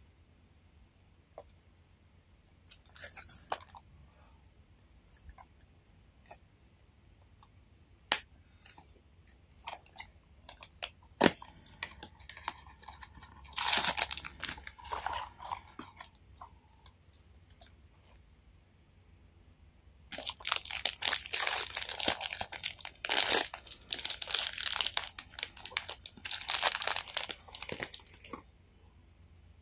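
Small sharp plastic clicks and taps of toy parts being handled, then a foil blind-box bag crinkling. Near the end comes a longer, louder spell of crinkling and tearing as the bag is torn open.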